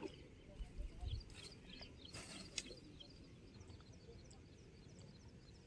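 Many small birds chirping faintly, with short high calls scattered throughout, over a low steady rumble. A few brief rustles come about a second and a half and two and a half seconds in.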